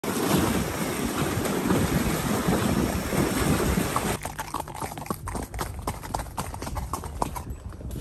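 Hoofbeats of a purebred Arabian horse being ridden. For about four seconds they are buried in a loud rushing noise, which cuts off abruptly and leaves separate, quieter hoof strikes.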